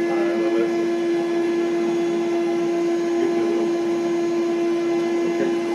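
A steady machine hum dominated by one strong, unchanging tone, with fainter steady tones above it.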